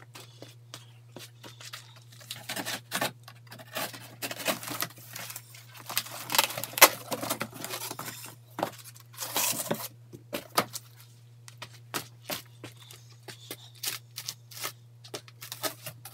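Corrugated cardboard box being cut at the corners, torn and flattened: irregular scraping, crackling and tearing of cardboard, with longer tearing stretches about six and nine seconds in.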